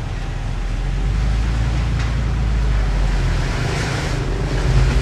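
Diesel engine of heavy earthmoving equipment running steadily under load, a little louder after the first second.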